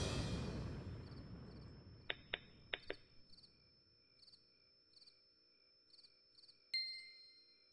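Music dies away, leaving faint crickets chirping in an even rhythm of night ambience. Four quick clicks come about two to three seconds in, and a single bright chime rings out and fades near the end.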